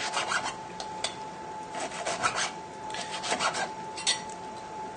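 Knife sawing through a grilled pork chop and scraping on a plastic chopping board, in several short runs of back-and-forth strokes.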